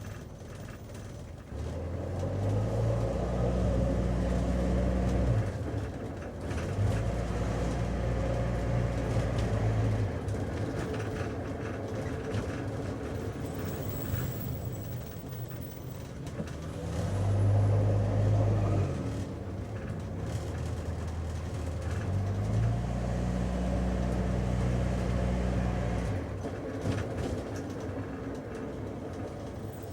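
Taxi interior while driving: engine hum and road noise heard from inside the cabin. The engine note comes up louder in several spells, as the car pulls away or accelerates, between quieter stretches of tyre and road noise.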